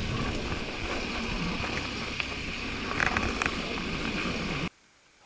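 Car moving through deep snow, heard from a camera mounted low on its body: a steady rush of tyres and snow sweeping along the underside, with a few clicks about three seconds in. It cuts off suddenly shortly before the end.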